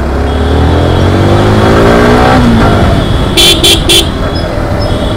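Motorcycle engine accelerating, its pitch rising for about two and a half seconds and then falling away, followed by three short vehicle horn beeps.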